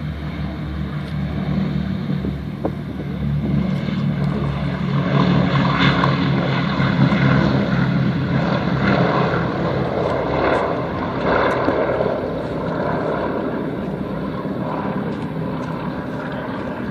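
A Boeing B-17 bomber's four Wright R-1820 Cyclone radial engines at takeoff power as it rolls and lifts off. It is a steady low propeller drone that swells over the first several seconds, peaks around the middle, then eases off as the aircraft climbs away.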